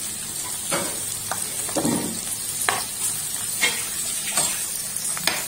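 Onions, green chillies and curry leaves sizzling in oil in a nonstick wok while a steel ladle stirs them, with a scrape of the ladle against the pan about once a second.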